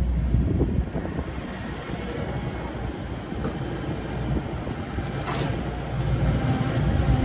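Hitachi ZX135 crawler excavator running, a steady low diesel rumble with rough, uneven machinery noise and brief higher squeaks about two and a half and five seconds in.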